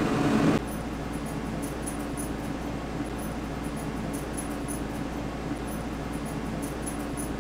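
Steady low electrical-sounding hum under faint background noise, with faint high ticks scattered through it. A slightly louder noise drops away abruptly about half a second in.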